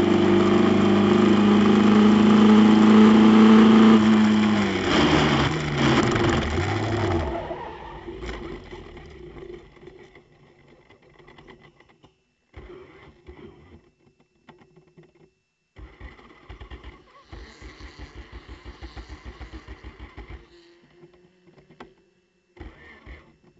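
Club Ford's Ford Kent four-cylinder engine running at high, steady revs, then the revs fall over a couple of seconds and the engine cuts out about seven seconds in as the car spins to a stop and stalls. Afterwards it is quieter, with short bursts of rapid, even pulsing from the starter cranking the stalled engine, the longest near two-thirds of the way through.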